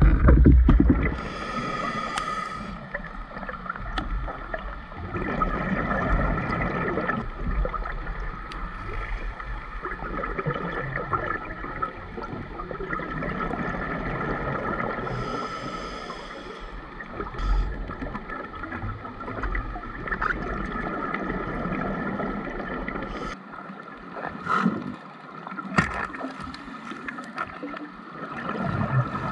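Scuba breathing heard underwater: brief hisses of a regulator inhalation and gurgling exhaled bubbles over a steady underwater hum, with a few sharp ticks near the end.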